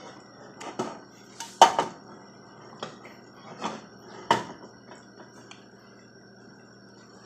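A spoon stirring coconut pieces in boiling brown-sugar syrup, knocking against the pot about eight times, the loudest about one and a half seconds in, with the syrup bubbling steadily underneath; the knocks stop about five and a half seconds in.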